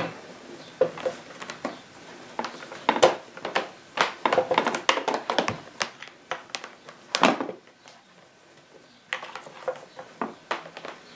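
Handling noise from a Tefal Effectis steam generator iron's power cord being wound into the cord storage around its plastic base: irregular plastic clicks and knocks with rustling, easing off for a moment about two-thirds of the way through.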